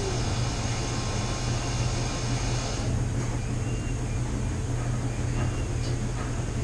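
Steady hum and whir of running household machines (washer, dryer, 3D printer, heater) with a strong low drone; a higher hiss in the mix cuts out about three seconds in.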